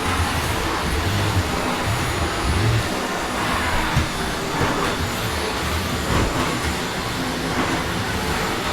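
Vacuum cleaner running steadily, a dense even noise with a low rumble beneath it.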